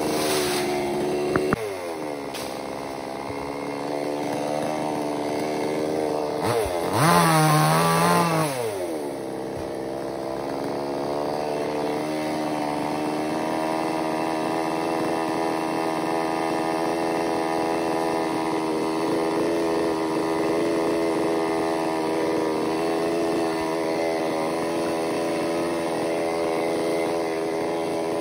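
Chainsaw engine running at a steady low speed, revved up briefly once about seven seconds in and then dropping back.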